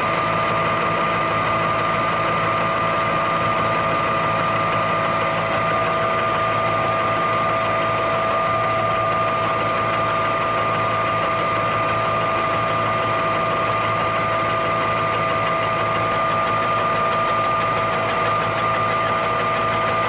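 Milling machine spindle driving a face mill through a shallow cut across a cast iron straight edge's prism face. It is a steady machine whine with a fast, even ticking over it.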